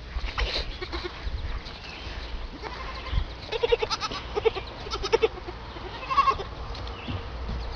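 An animal's short, quavering calls, several in a row from about three and a half seconds in and one more a little after six seconds.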